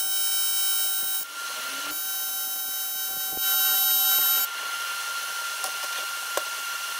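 AC TIG welding arc on cast aluminum, a steady high-pitched buzz with a hiss. It breaks off about a second in, strikes again about two seconds in, and cuts off about four and a half seconds in, leaving a faint background hum and a few small clicks.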